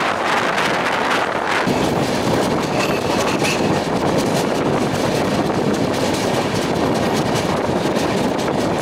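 Double Decker Express train running at speed: a steady, loud rumble of wheels on rail, with the balance of the noise shifting about a second and a half in.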